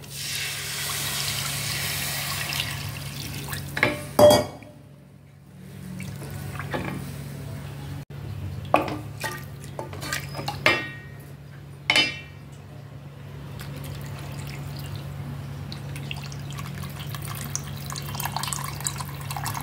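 Tamarind water poured from a steel vessel into a steel pot of masala, a steady splashing hiss, while a spatula stirs it in. The spatula knocks and scrapes against the pot, loudest about four seconds in, with a few more clinks later.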